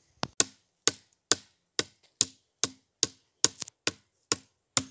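Shovel blade chopping into the ground in quick, even strokes, about two a second, each a short sharp strike.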